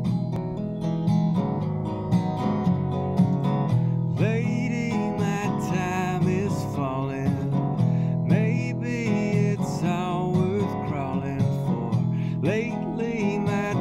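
Wood-bodied resonator guitar played in a steady accompaniment, with a man's voice singing over it from about four seconds in.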